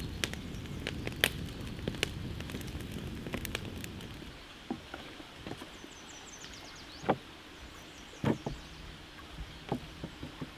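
Wood campfire burning with a steady low rumble and frequent crackles and pops; about four seconds in it cuts to a quieter stretch with a few sharp knocks and thuds as a whole raw pig carcass is handled on wooden boards.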